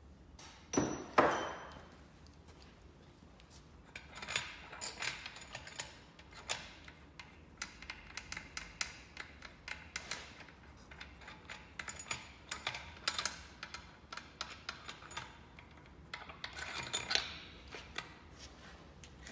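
Small metal parts of an open engine cylinder head clicking and rattling as they are handled, with two sharper knocks about a second in.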